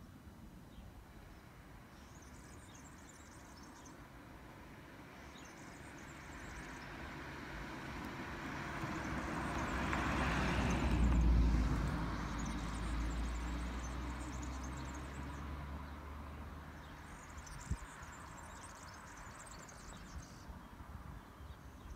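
A vehicle passing at a distance: a rushing sound with a deep rumble that slowly swells to a peak about halfway through, then fades away. Small birds chirp in spells in the background.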